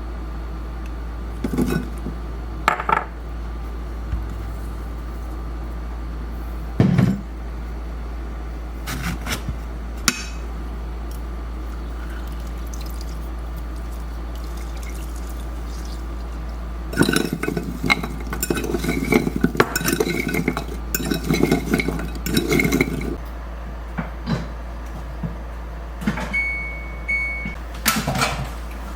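Kitchen clatter of dishes and utensils: scattered clinks and knocks, then a busy run of clattering and scraping about two thirds of the way through, over a steady low hum. A short beep sounds near the end.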